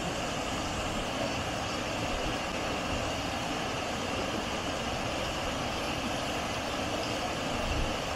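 Stream water rushing steadily over a small rocky cascade.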